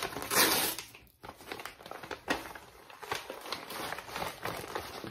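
A brown kraft-paper delivery mailer being torn open along its strip, with a loud rip in the first second. Quieter paper crinkling and rustling follows as the bag is pulled open.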